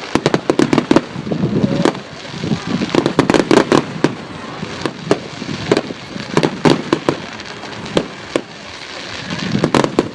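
Firework display: a dense, continuous run of sharp bangs and crackling bursts, several a second, with short surges of rapid-fire reports.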